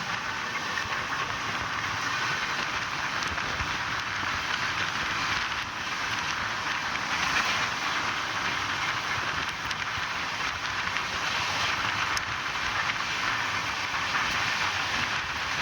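Steady rushing noise of an Indian Railways passenger train running along the track, heard from inside the coach.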